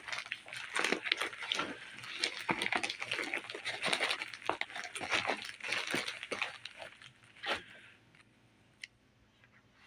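A gift bag and its paper rustling and crinkling as a gift is pulled out, stopping about eight seconds in.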